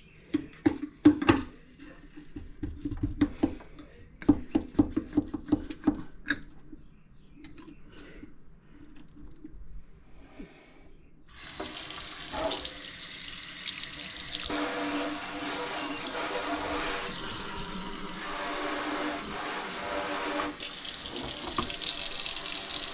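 A few clicks and knocks, then about halfway through the newly installed kitchen faucet is turned on and water runs steadily into the sink.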